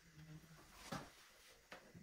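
Near silence broken by faint knocks of wood and a hand tool being handled: one about a second in and another just before the end.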